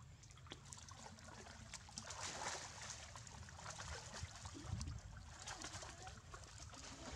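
Water splashing and sloshing as young macaques swim and tussle in a pond, with the heaviest splashing about two seconds in and again around the middle.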